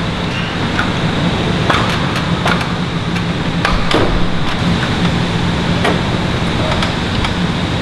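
Workshop background noise in an aircraft hangar: a steady low mechanical hum with scattered sharp knocks and clicks, about five of them, the strongest near the middle.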